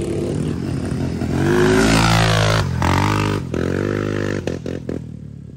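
Dirt bike engine revving hard, rising in pitch to its loudest around two seconds in, then dropping off and blipping up again a couple of times before easing down.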